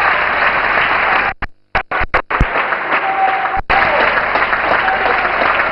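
Crowd applauding, a dense steady clatter of clapping with a few voices calling over it. The sound cuts out briefly several times about a second and a half in, and once more just before four seconds.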